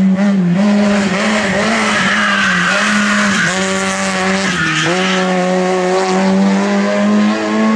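Racing car engine held at high revs, its pitch dipping briefly twice as the driver lifts or shifts, with tyres squealing about two to four seconds in as the car is thrown through the slalom.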